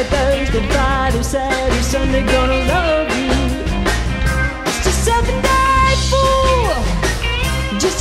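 Live rock band playing, with drum kit, guitar and singing; a long held high note slides down near the end.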